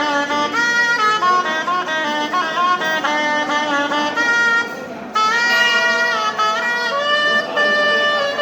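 Background instrumental music: a wind instrument playing a flowing melody, with a short drop in level about four and a half seconds in.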